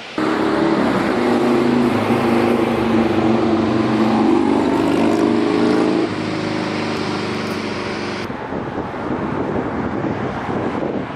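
A motor vehicle engine running at a steady speed over wide road and wind noise, with abrupt drops in level about six and eight seconds in.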